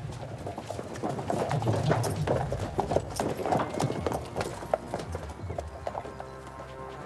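Horses' hooves clip-clopping as riders walk them out along a dirt track, a quick uneven run of knocks. Music comes in near the end.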